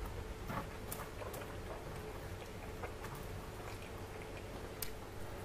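Close-up eating sounds: a person chewing a mouthful of spicy pork curry and rice eaten by hand, with scattered soft wet clicks and smacks, over a faint steady hum.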